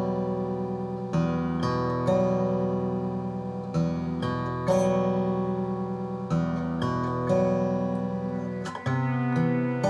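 Background music: acoustic guitar chords strummed, each chord ringing on before the next.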